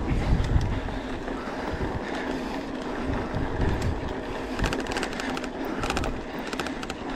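Mountain bike rolling over a dirt trail: steady tyre and wind rumble, with bursts of rapid clicking about four and a half and six seconds in.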